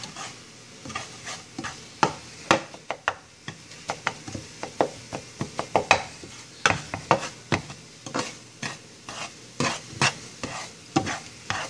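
A spatula stirring and scraping eggs in a frying pan: irregular scrapes and taps against the pan, with the eggs sizzling more quietly underneath.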